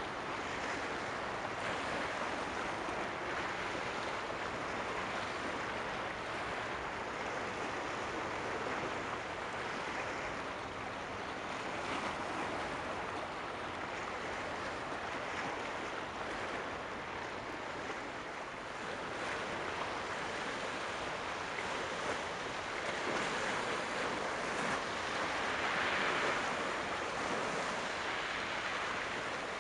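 Steady rushing of sea water and wind, swelling a little near the end.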